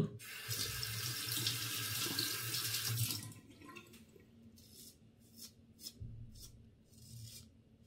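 Water from a sink tap running for about three seconds and then turned off. A few faint, short scrapes follow as the four-blade razor cuts through beard stubble.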